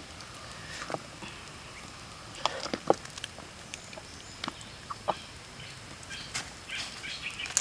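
A metal ladle clinking and scraping against a steel wok while a pork leg is basted in sauce over a wood fire, heard as scattered sharp clinks, loudest near the middle.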